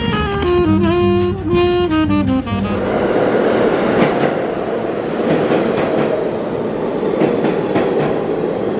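Music with a melody line stops about two and a half seconds in. A steady noisy din with occasional sharp clicks takes over.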